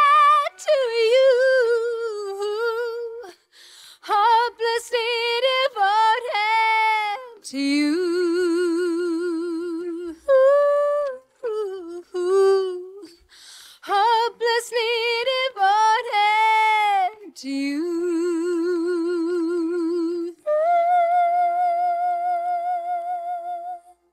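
Unaccompanied female vocal, the isolated lead voice of a slow pop ballad, singing the closing phrases with a wide vibrato. Several long notes are split by short pauses, and the last note is held for a few seconds before it stops just before the end.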